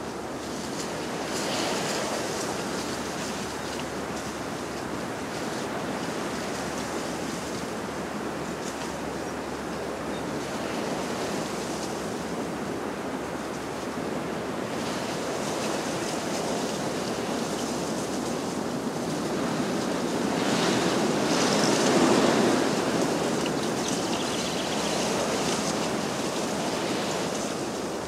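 Ocean surf washing in and easing back in a steady wash of noise, swelling to its loudest about three quarters of the way through.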